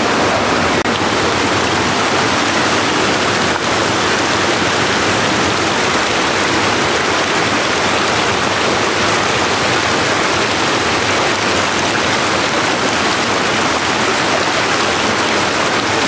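Steady rush of running water in concrete trout-farm ponds fed with river water.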